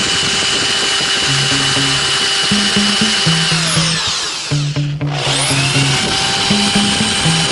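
Instrumental section of a rap-rock song: a buzzing, distorted lead over a stepped, rhythmic bassline. About four seconds in, the whole mix dives in pitch almost to a stop, then sweeps back up and the beat resumes.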